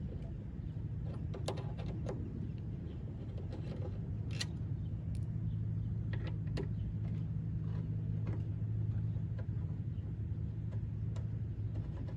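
Scattered light metal clicks and taps of a Torx driver working the screws that hold a car door's lock mechanism, over a steady low hum.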